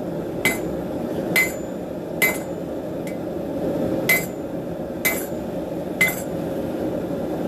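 Hand hammer striking a railroad spike on a Hay Budden anvil while forging it into a knife: seven blows at about one a second, each with a short metallic ring, one of them lighter. A steady low hum runs underneath.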